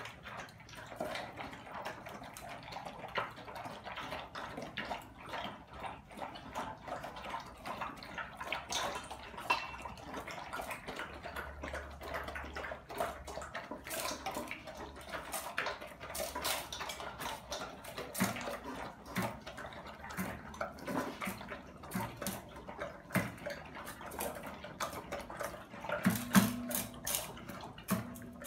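Dogs eating from stainless steel bowls: steady wet chewing and slurping with small clicks against the metal, and a few louder clanks of the bowls near the end.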